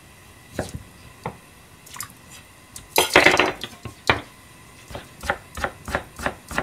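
Kitchen knife cutting a boiled bamboo shoot on a plastic cutting board. A few separate cuts come first, then a louder rustling noise lasting about half a second around the middle, then steady chopping at about three strokes a second near the end.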